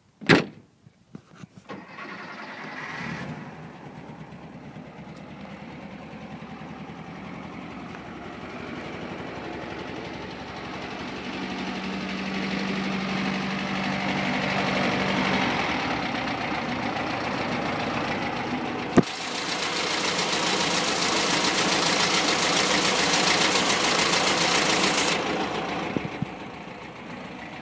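A vehicle engine, likely the 1965 camper van's, is started after a sharp click and then runs steadily. About two-thirds of the way in it gets louder with a hiss for several seconds, then drops back to a quieter run.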